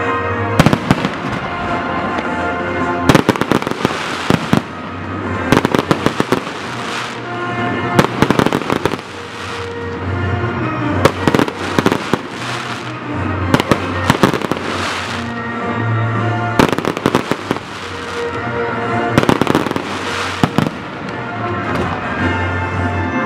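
Aerial fireworks bursting in rapid crackling volleys, a new cluster of bangs and crackles every one to three seconds, with music playing underneath.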